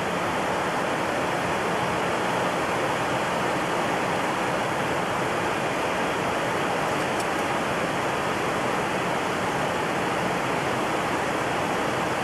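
Steady, even rushing noise on the flight deck of a Boeing 727 jet in flight, the constant cockpit noise of the jet at speed.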